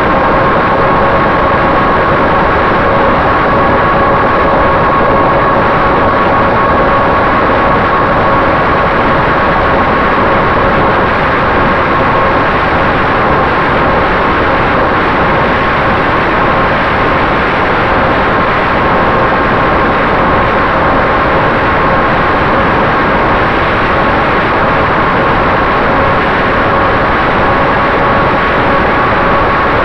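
Electric motor and propeller of a Finwing Traveler RC plane in steady cruise, heard through its onboard camera: a steady whine with a few even tones over a loud rush of air.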